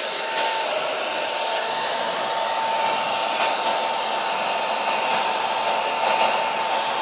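Hand-held hair dryer running steadily, a rush of blown air with a constant whine from its motor.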